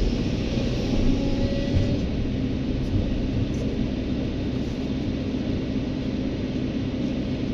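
Heavy diesel engine of earthmoving machinery running at a steady speed: a low rumble with a steady hum.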